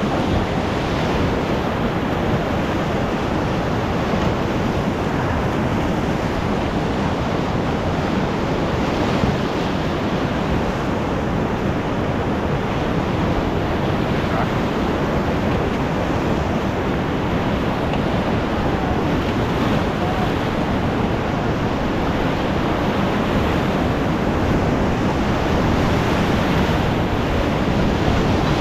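Whitewater of a big river rapid rushing around a raft, with waves splashing and breaking against the boat; a steady, loud rush that grows louder near the end.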